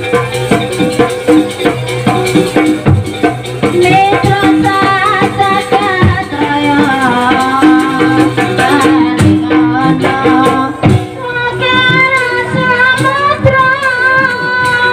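Live jaranan music: Javanese gamelan with hand-drum strokes and a rattling percussion line. A singer's voice comes in about four seconds in and carries a melody over the ensemble.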